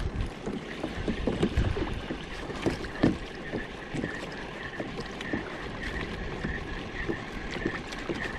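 Water slapping and lapping against a fishing kayak's hull on open sea, with irregular low knocks of the boat and gear.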